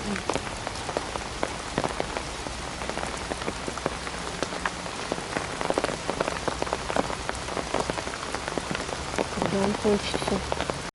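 Heavy rain pouring down, with many separate drops striking close by.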